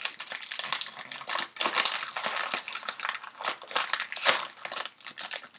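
A plastic Cheetos snack bag crinkling and crackling as it is pulled open right at the microphone, an irregular run of crackles with the loudest about four seconds in.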